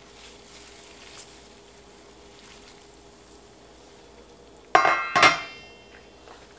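Faint hiss of fresh herbs going into steaming, near-boiling water in a stainless steel pot, then two loud ringing metal clanks close together about five seconds in as the cookware is handled on the stove top.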